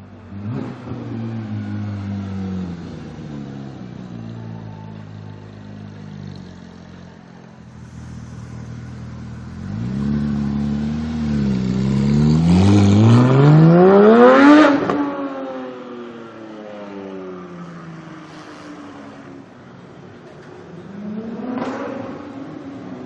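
Porsche 991 GT3's naturally aspirated flat-six through an iPE Innotech titanium valved exhaust. It starts falling in pitch, gives a short rev about ten seconds in, then accelerates hard with a steeply rising pitch to the loudest point about two-thirds of the way through, where the pitch drops sharply as it lifts off. It revs briefly once more near the end.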